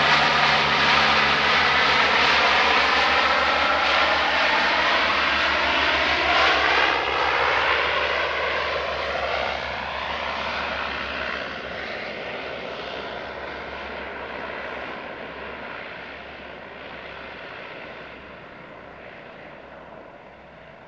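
Amphibious firefighting water-bomber flying low overhead and away: its engine drone, loud at first, drops in pitch as it passes and then fades steadily as it heads off across the river.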